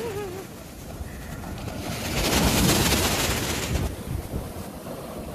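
Small sea waves breaking and washing up the sand at the shoreline, the wash swelling to a peak about halfway through and then fading. Wind rumbles on the microphone throughout.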